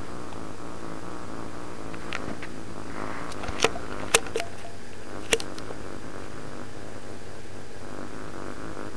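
Domestic cat purring steadily, with a few sharp clicks about halfway through.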